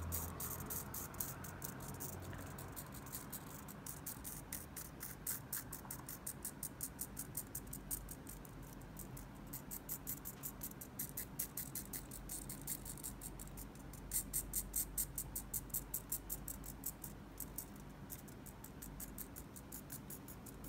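Small hobby servo motor of a self-stabilizing spoon ticking and buzzing in rapid, uneven runs of clicks as it keeps correcting the spoon's angle against the hand's movements; the clicking is loudest about two-thirds of the way through.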